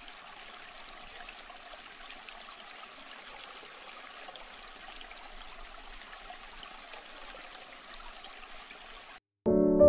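Aquarium water trickling and bubbling steadily, with small pops of air bubbles. It cuts off suddenly near the end, and loud piano music begins.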